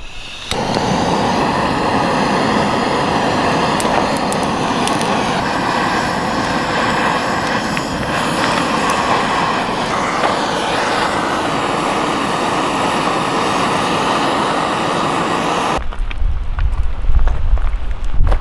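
Gas torch held on the brazier, running in a steady roar that cuts off abruptly near the end.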